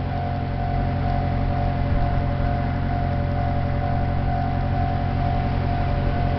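Japanese railroad crossing warning bell ringing in even, repeating strokes, over a low rumble that slowly grows louder as a train approaches the crossing.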